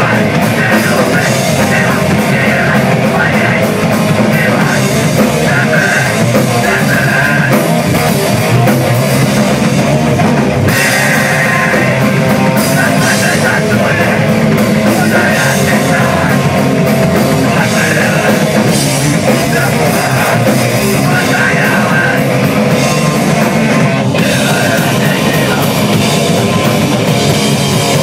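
Hardcore punk band playing loud live music on electric guitars and a drum kit.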